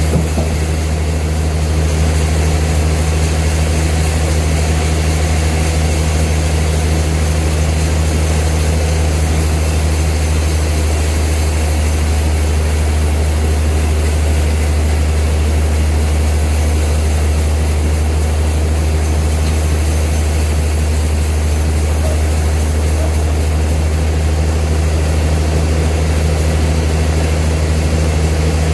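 Old sawmill machinery running steadily with a deep, continuous drone.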